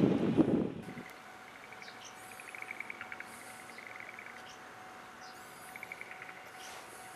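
Wind buffeting the microphone for about the first second, cutting off abruptly. Then small birds chirp, with several short, rapid trills and a few high single chirps.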